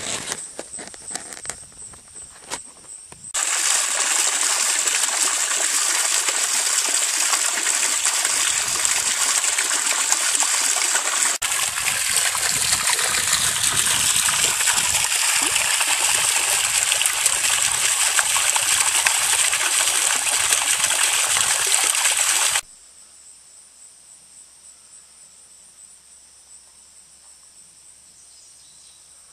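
Running water trickling and splashing steadily into a small pond. It starts suddenly a few seconds in and cuts off just as suddenly about twenty seconds later, leaving crickets chirping.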